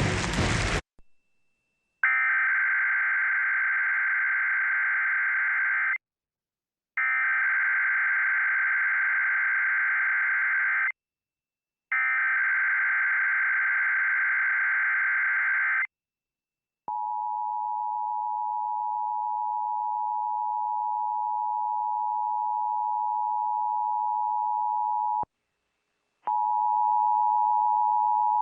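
Emergency Alert System test tones: three bursts of SAME header data, each an electronic buzzing screech about four seconds long with a one-second gap between them, followed by the steady two-tone EAS attention signal for about eight seconds. After a one-second break the attention tone starts again near the end.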